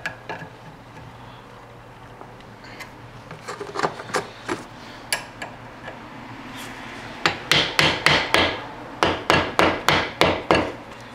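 Hammer blows on a slit steel fence-post piece, spreading the sides of the slit apart: a few light, scattered taps, then from about seven seconds in a steady run of about a dozen sharp strikes, roughly three a second.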